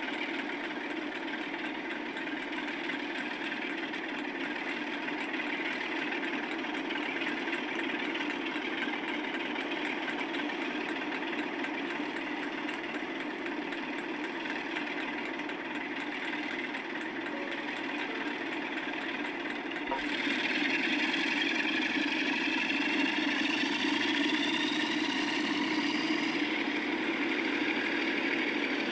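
Diesel locomotive engine running steadily. About two-thirds of the way through it gets louder and a whine rises in pitch.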